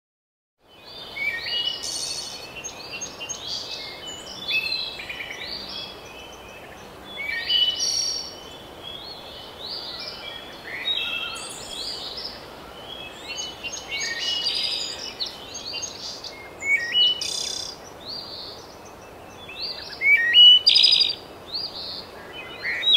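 A chorus of songbirds: many overlapping chirps and short songs over a steady low background noise, starting abruptly under a second in.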